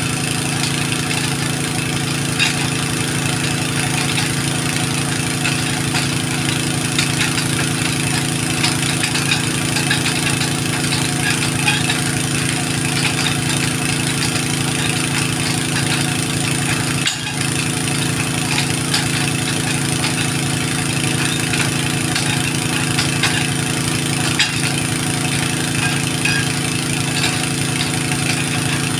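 An engine or motor running steadily at a constant speed, with a brief dip about two-thirds of the way through.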